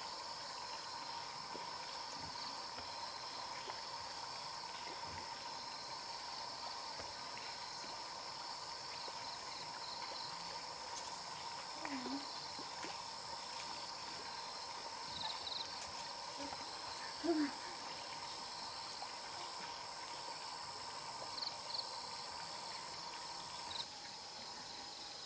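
Insects chirring steadily in the evening, several even, unbroken tones layered over each other, with a few short animal calls about halfway through and again near the end.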